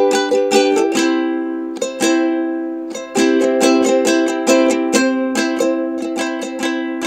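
Background music: a plucked string instrument like a ukulele strumming chords in a quick, even rhythm. Twice, about a second in and again about two seconds in, a chord is left to ring and fade before the strumming resumes.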